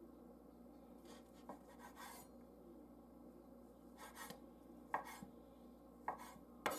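Chef's knife slowly slicing cold cooked turkey on a wooden cutting board: soft, unevenly spaced scrapes of the blade through the meat and light taps on the board.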